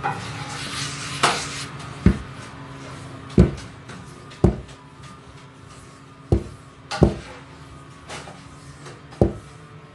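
Large sheet of roti dough being slapped and thrown down on the counter as it is stretched thin by hand: about eight dull thuds at uneven gaps, the loudest about three seconds in.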